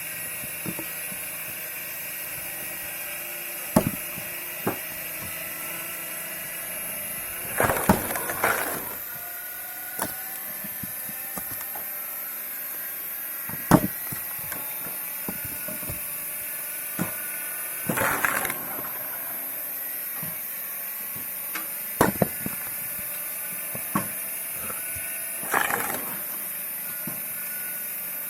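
Homemade screw-cone log splitter, belt-driven by a 350 W washing-machine motor, running with a steady whine while it splits logs. Sharp wood cracks come throughout, with three longer splintering, grinding bursts as the cone bites in and the wood splits.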